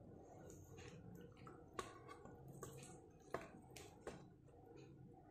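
Faint soft squishes and a few small clicks as wet oyster mushrooms, squeezed of their soaking water, are set down on a plate.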